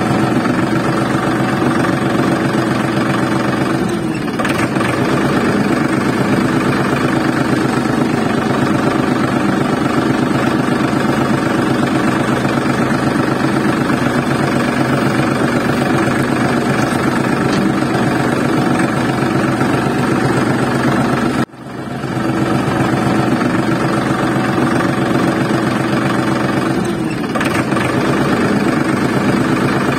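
Tractor engine running steadily at a constant speed, laid over the footage as a sound effect. About two-thirds of the way through it cuts out for an instant and starts over.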